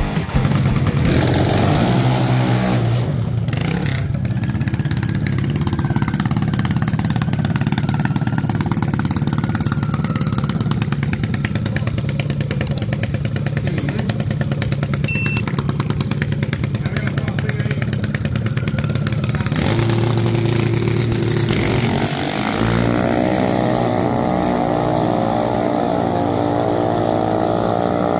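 Junior dragster engines running, with a change in sound about 20 seconds in and revving up near the end.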